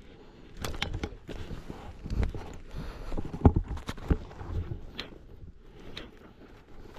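Footsteps through leaf litter on a forest floor, with irregular sharp cracks and knocks, the loudest about three and a half seconds in.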